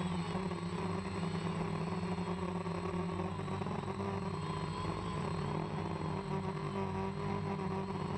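Steady hum of a drone's electric motors and propellers, picked up by the camera mounted on it, several pitches wavering slightly.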